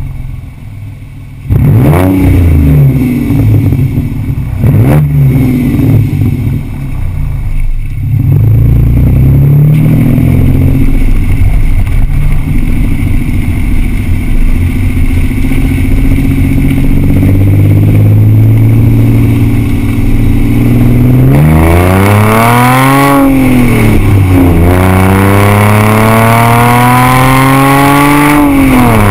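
2006 Audi A6 3.2 quattro's V6 exhaust, its mufflers removed with the cats and resonators left in, heard from under the car. Two quick throttle blips at a standstill, then the car pulls away and accelerates. Near the end the revs climb twice, each time dropping sharply at an upshift.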